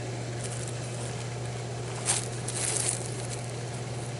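Broken plastic landline phone pieces clacking once sharply about two seconds in, followed by a brief crackle of plastic, over a steady low hum.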